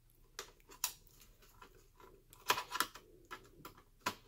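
Screwdriver backing a small screw out of a laptop's CD-ROM drive mounting: scattered light clicks and ticks of metal on metal, with a quick run of them about two and a half seconds in.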